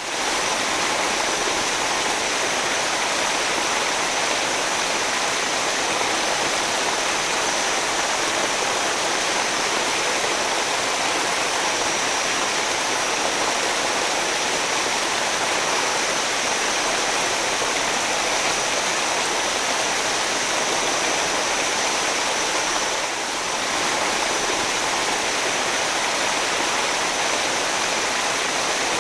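Steady rushing of water pouring over waterfalls and through rapids, an even unbroken roar of white water.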